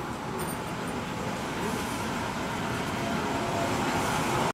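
Diesel locomotive A25 016 approaching slowly, its engine running with a steady low rumble that grows louder as it comes closer.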